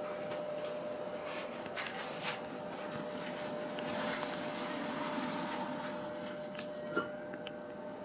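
Hampton Bay ceiling fan from 1997, built like the SMC DC-42, running with a steady motor hum and a constant whine. A couple of short knocks, about two seconds in and near the end.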